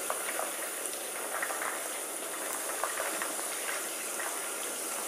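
Hot oil in a deep-fry pot sizzling around fresh mushrooms and spices. It is a steady hiss with small scattered crackles.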